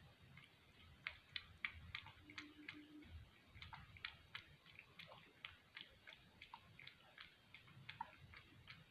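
A cat lapping milk: faint, quick clicks of the tongue at the milk, about three a second, starting about a second in.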